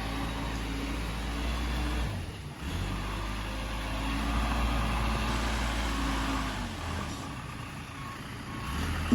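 Heavy diesel engine running steadily. It drops out briefly about two and a half seconds in, eases off for a second or so near the end, then picks up again.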